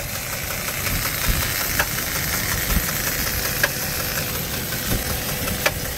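2004 Jeep Liberty's 3.7-litre V6 idling steadily, with a sharp tap every couple of seconds that is not there all the time. The owners suspect a stuck valve hitting the piston, a collapsed lifter or dropped rocker arm, or timing-chain slop.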